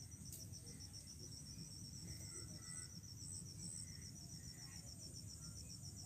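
Insects chirping in a steady, evenly pulsed high trill of several pulses a second, with a second, fainter high chirp coming and going, over a low rumble.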